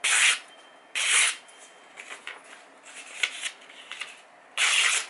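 Freshly sharpened kitchen knife slicing through a glossy magazine page held in the air: three quick cuts, each a short burst of paper noise, near the start, about a second in, and near the end, with quieter paper rustling between them.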